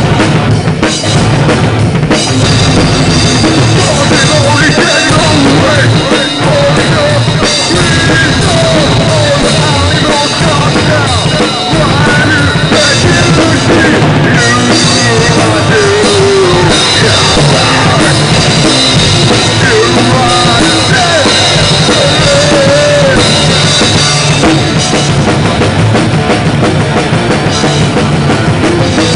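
A drum kit played hard at close range, bass drum and cymbals to the fore, in a loud live rock band with other wavering pitched instruments or voices in the mix.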